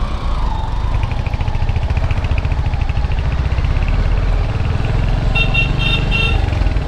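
Motorcycle engine running at low speed with an even low pulsing, in slow traffic. About five seconds in, a vehicle horn gives about four short beeps.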